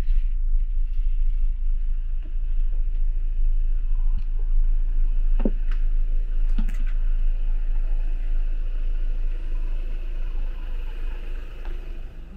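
Idling coach engine giving a steady low rumble, with a couple of short knocks about five and a half and seven seconds in. The rumble falls away near the end.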